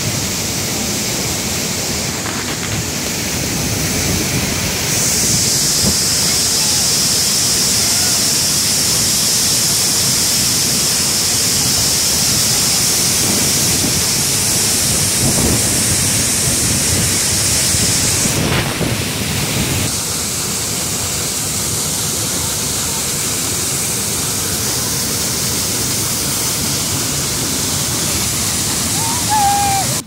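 Waterfall pouring over rock into a river: a loud, steady rush of falling water. Its tone changes abruptly a few times, growing hissier between about 5 and 18 seconds in.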